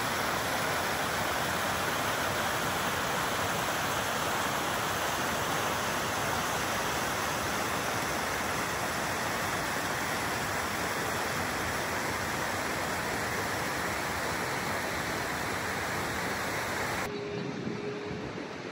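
Mountain stream rushing over rocks: a loud, steady rush of water that cuts off sharply near the end, leaving a quieter background.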